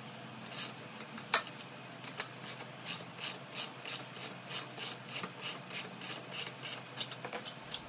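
Ratchet socket wrench clicking through rapid back-and-forth strokes, about three to four a second, as it tightens a nut on a steel bolt, with a sharper metal click about a second in and another near the end.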